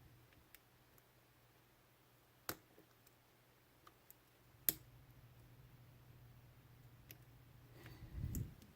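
Faint metal clicks of a short hook pick and tension wrench working inside a Cisa padlock's keyway, with two sharper clicks about two seconds apart. A brief low, muffled handling rustle comes near the end.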